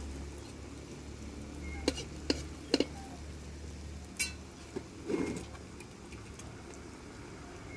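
Chana dal fritters frying in hot oil in a karahi, a low sizzle. A few sharp clicks, like a utensil against metal, come about two to three seconds in.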